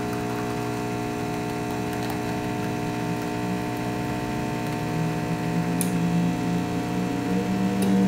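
Planit The Art espresso machine's pump humming steadily while it pulls an espresso shot. The hum gets a little louder about five seconds in.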